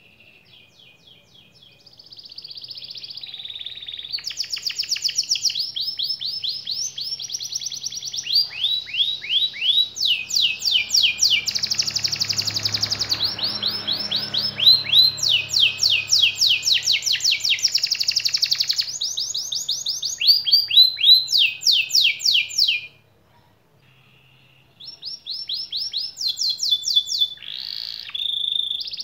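Yellow domestic canary singing: a long, continuous song of rapid rolling trills and runs of repeated falling whistled notes, soft at first and then loud, with a brief pause about two-thirds of the way through before the song resumes.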